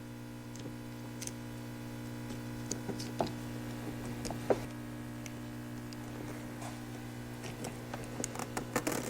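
Scattered small clicks and taps of wire terminals being worked out of a plastic electrical connector, the clicks coming thicker near the end, over a steady low hum.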